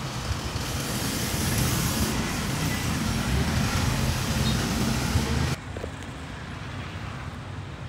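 Street traffic noise: a steady rumble of passing motor vehicles. About five and a half seconds in it cuts off abruptly to a quieter, duller background hum.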